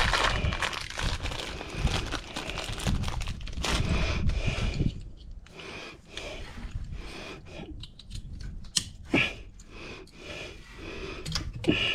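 Irregular rustling, crinkling and light clicks of hands handling small parts, with a few sharp clicks in the second half.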